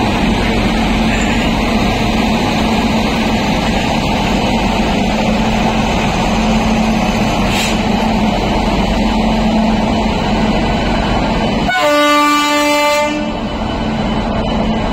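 A train running by with steady loud running noise. Near the end a train horn sounds one blast of about a second and a half.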